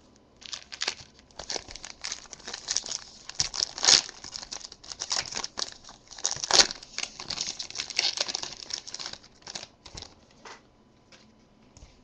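Foil wrapper of a Topps Strata football card pack being torn open and crinkled by hand: a dense crackling with two sharp rips about 4 and 6.5 seconds in. It thins to a few light rustles near the end as the cards come out of the wrapper.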